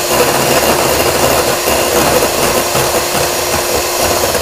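Electric hand mixer running steadily, its beaters whipping egg whites in a bowl toward soft peaks; a steady motor hum under the whisking noise.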